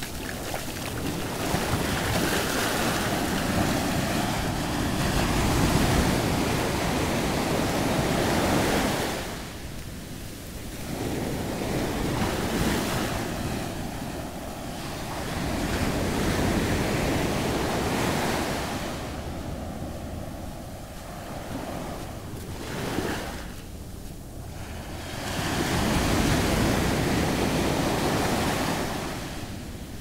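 Ocean surf breaking and washing up a sandy beach, a steady rush that swells and falls back every several seconds as each wave comes in and recedes.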